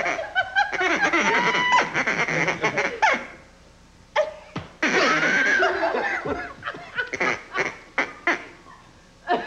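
Small hand-held calls blown in quick quacking, honking squawks that bend up and down in pitch, with a quiet pause about three seconds in.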